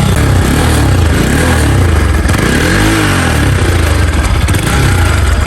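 Bajaj Pulsar NS200's single-cylinder engine running, revved up and back down once about halfway through. The owner calls the bike's noise very bad and has brought it in for the sound problem.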